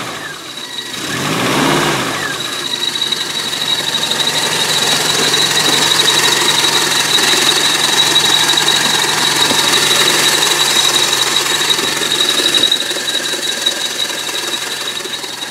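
Nissan Z24 2.4-litre four-cylinder petrol engine running just after a cold start at about freezing. It is revved once briefly about two seconds in, then settles into steady running with a thin, steady high whine over it. The knock the owner is chasing is hardly audible while the engine is cold.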